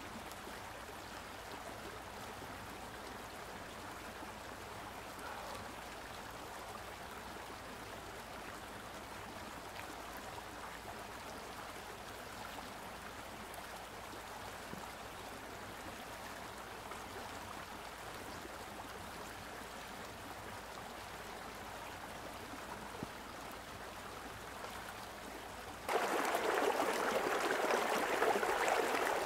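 A steady, even hiss, which jumps suddenly to a much louder rushing hiss near the end.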